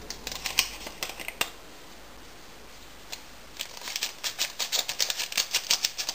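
Small paper sachet of vanillin powder being handled and torn open: a few crinkles and crackles, a pause, then a quick run of crackling.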